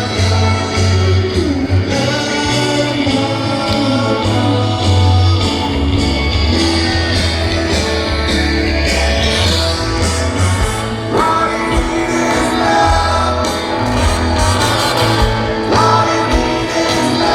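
Live rock band playing a song, with singing over guitars and bass, loud and continuous.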